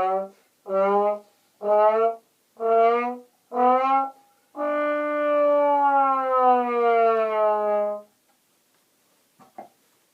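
A brass horn blown in a string of short blasts, then one long held note of about three and a half seconds that sags slightly in pitch, followed by a few faint clicks near the end.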